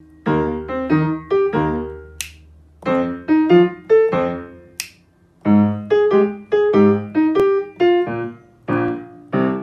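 Background music: a bouncy keyboard melody of short, piano-like notes in quick phrases, with two brief high swooping sounds about two and five seconds in.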